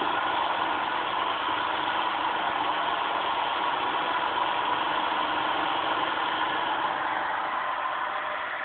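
Homemade Newman motor, a battery-driven motor switched by a mechanical commutator, running steadily with a continuous buzzing whir, its brushes sparking at the commutator. It grows slightly fainter near the end.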